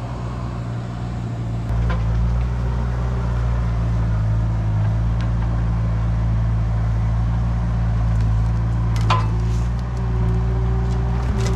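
ASV compact track loader's diesel engine running steadily as the machine travels over the log road carrying a log. A sharp knock comes about nine seconds in, and a few more knocks at the very end.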